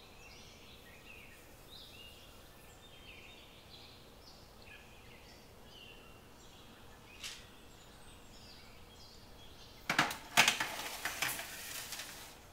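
Metal baking tray clattering and scraping onto an oven rack in a quick run of sharp clanks about two seconds long, near the end. Before that only faint room noise with a few soft high chirps and a single small click.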